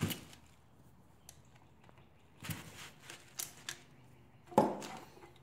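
Scattered clicks and knocks as a Kawasaki Z125 Pro cylinder head and a hand ratchet are handled and shifted on a workbench, with the loudest knock near the end.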